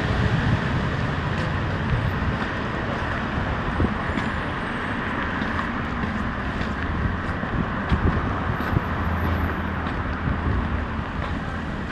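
City street traffic: a steady din of passing cars and engines, with a low rumble and a few faint ticks.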